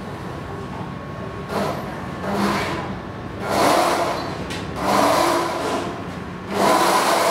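Electric drive of a tracked stair-climbing wheelchair running as it crawls down a staircase: a steady motor hum with repeated louder surges, about one every second or so, as the tracks go over the steps.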